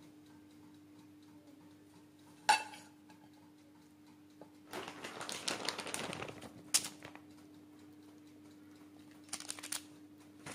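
Hand-topping a pizza: a sharp clink of a dish about two and a half seconds in, then about two seconds of soft rustling and small knocks as chicken pieces and shredded cheese are dropped onto the pizza, with a few light taps near the end. A faint steady hum runs underneath.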